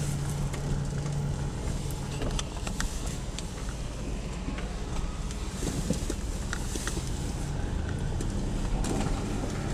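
Car cabin noise while driving: a steady low engine and road rumble, with a few faint clicks.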